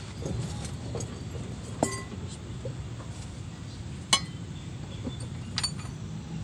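Metal tools clinking against a truck's wheel hub: a few sharp clinks, the loudest just after four seconds in, over a steady low rumble.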